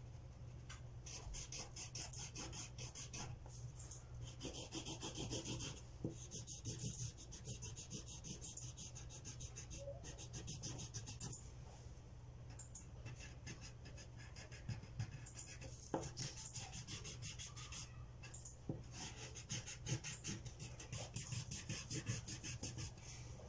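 Felt-tip marker scratching back and forth on paper in rapid strokes, in spells of a few seconds with short pauses between them.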